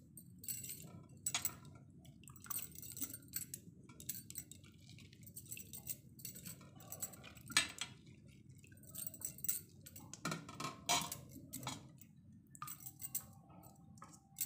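Wet cauliflower florets being set one by one into an empty aluminium kadai, making irregular soft taps and clinks against the pan with a few drips of soaking water.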